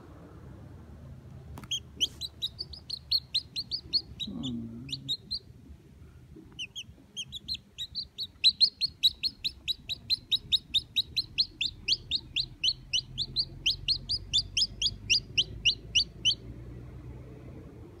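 A newly hatched chicken chick peeping: runs of short, high, falling peeps at about four a second, with a short pause partway through.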